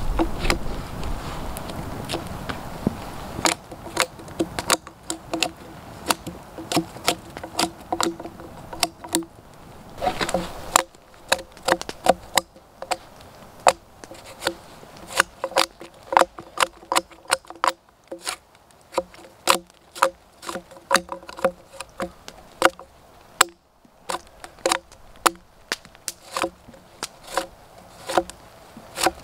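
Large knife blade scraping and slicing bark off a log in repeated strokes, a sharp stroke every half second or so, coming faster in the second half.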